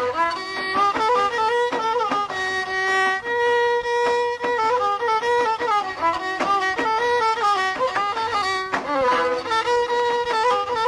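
Instrumental break in Middle Atlas Amazigh folk music: a violin plays an ornamented melody, moving in quick steps and slides between held notes.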